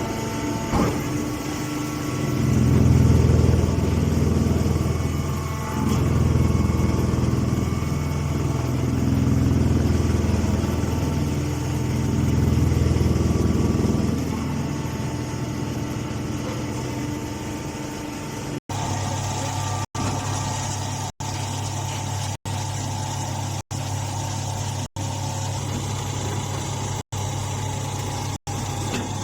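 Engine of hay-baling machinery running. It swells and eases several times in the first half, then runs steadier, with the sound cutting out for an instant about every second and a quarter near the end.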